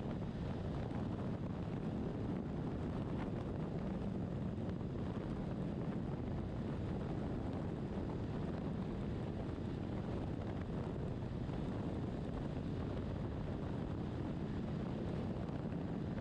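Steady wind rush and road noise while riding a BMW R1200RT motorcycle, with wind buffeting the microphone.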